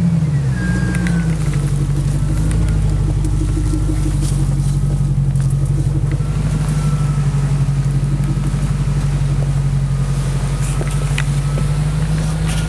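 A lifted Jeep Grand Cherokee's 4.7-litre V8 running steadily at low revs while the Jeep crawls over rough off-road terrain. A thin steady whine sits above the engine note, and a few short clicks and knocks come through.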